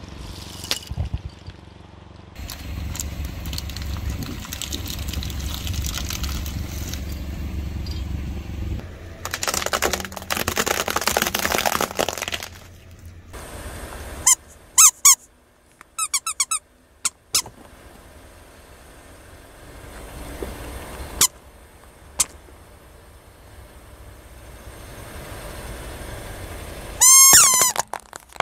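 Car tyre rolling over and crushing objects: a low rumble, then a spell of dense crackling and crunching, then several short high squeaks, with the loudest run of squeaks near the end.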